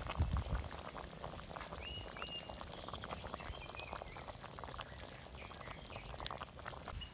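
Chicken stew boiling in a clay pot, its bubbles popping and crackling steadily.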